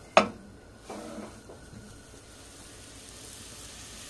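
A single sharp sound about a quarter second in as a raw steak is laid into a hot pan, then a steady sizzle of the steak starting to sear, its hiss growing a little stronger near the end.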